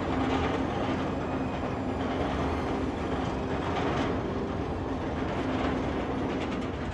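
Steady mechanical rumble with a faint low hum, holding at an even level.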